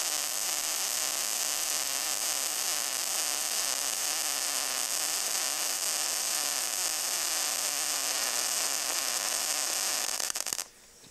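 MIG welding arc from a Longevity MIGWELD 200S laying a bead on A500 grade B steel: a steady hissing crackle that cuts off suddenly, with a brief stutter, about ten and a half seconds in as the arc is stopped.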